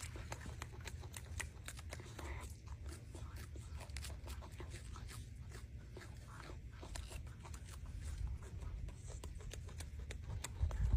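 Golden snub-nosed monkey chewing and smacking on a peeled orange: many small wet clicks and crunches at an uneven pace, over a low steady rumble.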